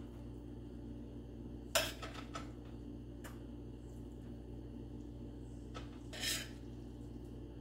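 Metal spoon clinking and scraping against cookware as ground beef and vegetable filling is spooned into a glass baking dish: a sharp clink about two seconds in, a few lighter taps, and a longer scrape near the end.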